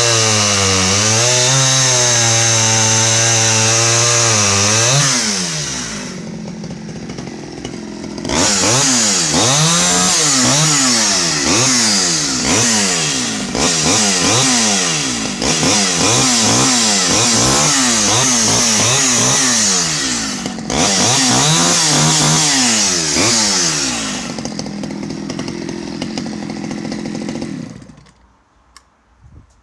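Stihl 011 AVEQ 41cc two-stroke chainsaw running at high speed while cutting very hard wood, its engine pitch rising and falling repeatedly under the changing load. It drops back to a lower idle twice and is switched off shortly before the end.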